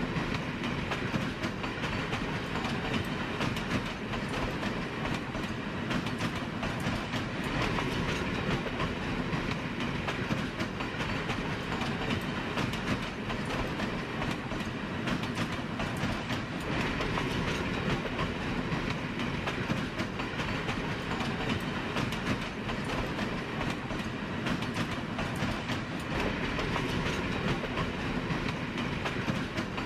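Train running along the track: a steady rumble with the wheels clicking over the rail joints.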